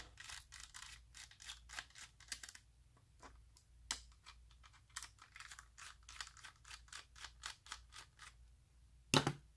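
A small screwdriver undoing the chassis screws of a plastic Carrera Digital slot car: faint, irregular clicking and ticking, several a second, with one louder click near the end.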